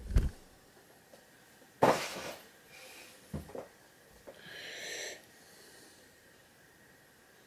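Handling noise from a knurled metal hand gripper being turned in the hand close to the microphone: a few knocks and rustles, the loudest about two seconds in, then a short hissing rush near five seconds.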